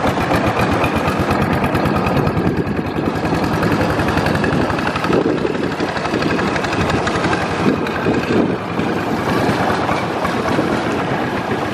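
Engine of a wooden long-tail motorboat running steadily under way, a fast, even chugging.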